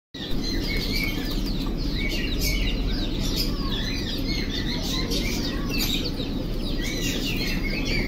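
A cage of young quail chirping: many short, high arched chirps overlapping continuously, over a steady low rumble.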